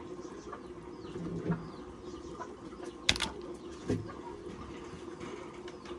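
Small birds chirping over a low steady hum, with one sharp click about three seconds in.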